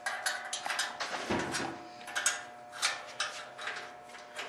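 Metal tools and loose metal parts clinking and clanking: an irregular run of sharp knocks and rattles, about a dozen over a few seconds.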